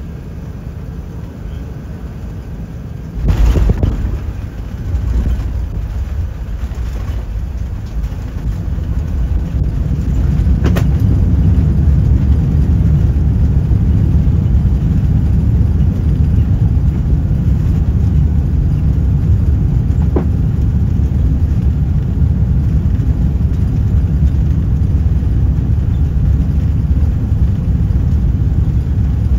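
Airbus A380 touching down, heard from inside the cabin: a sudden heavy thump about three seconds in as the wheels meet the runway, then the rumble of the landing roll with a second knock about eleven seconds in. From about eight seconds in the reverse thrust of the inboard engines builds into a loud, steady low rumble as the aircraft slows.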